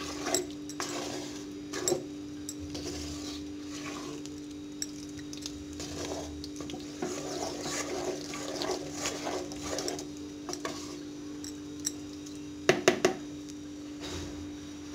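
Wooden spoon stirring a thick, oily mash of cooked sorrel greens in a clay pot, with irregular light knocks of the spoon against the pot and a short cluster of louder knocks near the end. A steady low hum runs underneath.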